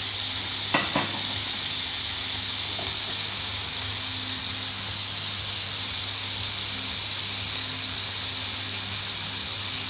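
Steady sizzling hiss of hot fat frying, with two sharp clicks about a second in.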